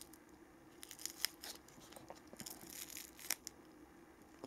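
Faint rustling and scraping of a small nylon flashlight holster with a polypropylene belt loop being turned over in the hands, with a few short, sharp scratches in two clusters.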